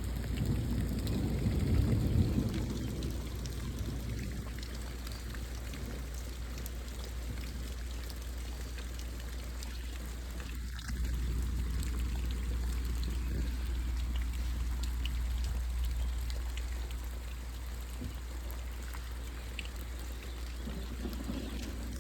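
Heavy rain falling in a steady hiss, with scattered drops ticking and water pouring off surfaces. A low rumble swells in the first few seconds, and the rain's level steps up a little about halfway through.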